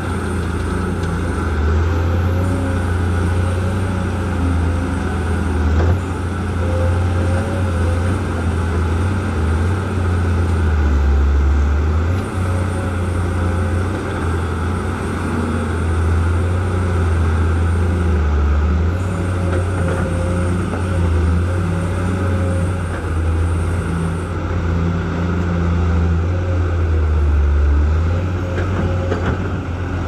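Four-axle dump truck's diesel engine running steadily with a low drone while it powers the hydraulic hoist that tips the loaded bed up to dump soil.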